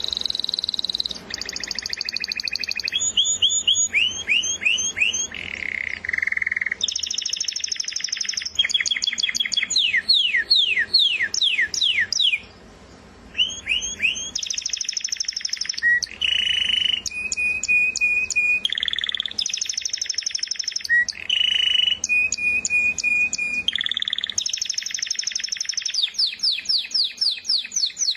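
Canary singing a long song of repeated-note phrases: runs of fast downward-sweeping notes, buzzing trills and held whistles, each changing to the next every second or two, with one short break about twelve seconds in.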